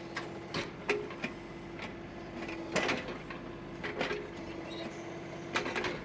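John Deere 3039R compact tractor's diesel running with a steady whine under hydraulic load as its 385A backhoe bucket rips through hybrid poplar roots, with several sharp cracks as roots snap and tear.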